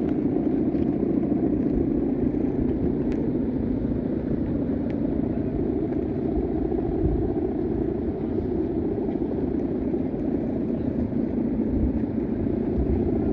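Strong wind buffeting the microphone: a steady, low rumbling noise.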